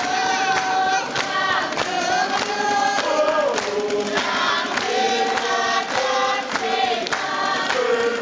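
A group of voices singing a song together, with hand claps along the beat.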